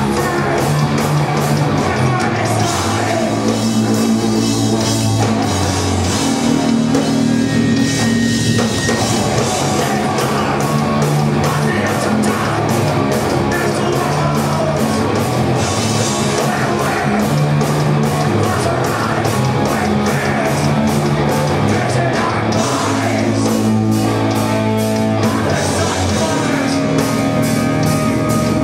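Live rock band playing loud: distorted electric guitars and bass over a drum kit played with a fast, steady beat.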